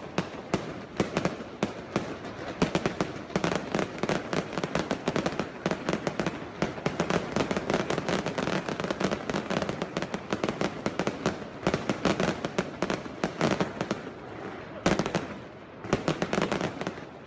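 Aerial fireworks going off in a dense, rapid barrage of bangs and crackles, many per second, thinning out with short gaps near the end.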